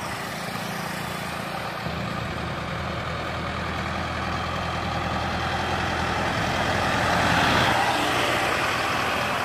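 Diesel engines of Arjun 605 tractors running steadily under load as they haul fully loaded sugarcane trolleys, with tyre and road noise. The sound grows louder as the tractors approach and is loudest as one passes close, about three-quarters of the way through.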